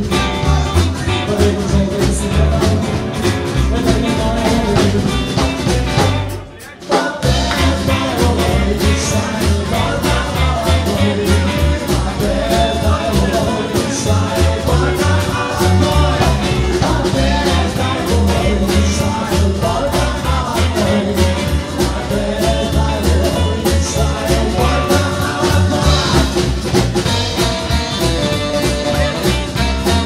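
Live band playing upbeat music: upright double bass, strummed hollow-body electric guitar and saxophone, with a man singing into a microphone, over a steady bass beat. The music drops away briefly about six and a half seconds in, then carries on.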